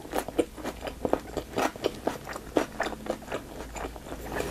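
Close-miked chewing of a mouthful of fresh Vietnamese spring roll: irregular wet clicks and smacks of the mouth.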